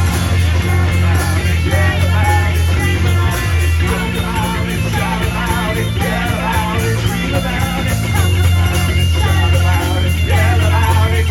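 Live punk rock band playing an instrumental passage, with a heavy bass guitar line under electric guitar and drums, and some vocal shouts.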